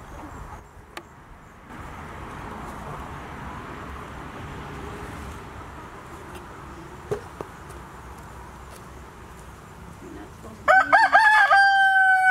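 Rooster crowing once near the end: a loud call that climbs in a few quick steps and then holds a long steady note. Before it there is only a faint steady hiss.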